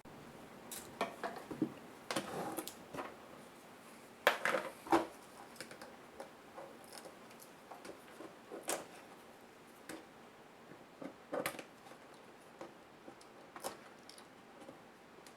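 Irregular light clicks, taps and scrapes of small plastic and metal laptop parts being handled and taken apart by hand, with a cluster of louder knocks about four to five seconds in.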